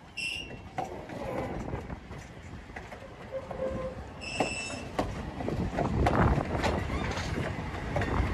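Heritage wooden-style passenger coaches rolling past close by, wheels clicking over the rail joints under a steady rumble. Brief high-pitched wheel squeals come at the start and again about four seconds in. The rumble grows louder in the second half.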